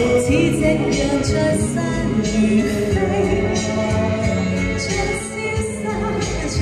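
A woman singing a Chinese pop song into a microphone over a backing track.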